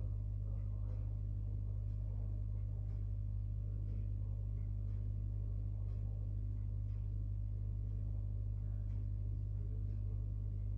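A steady low hum of room tone, with faint soft ticks now and then.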